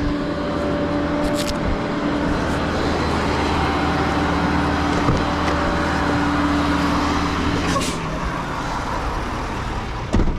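A motor vehicle engine running at a steady speed, which stops about eight seconds in.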